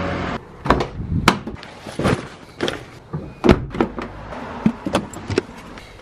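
Clicks and knocks of a Volkswagen van's front door being handled: the outer handle pulled, the latch released and the door swung open, about a dozen sharp knocks in all. A steady hum cuts off about half a second in.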